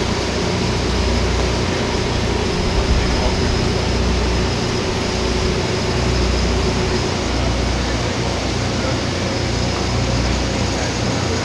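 Steady background noise of a motocross race pit area: a constant low rumble and hum, with a faint murmur of voices.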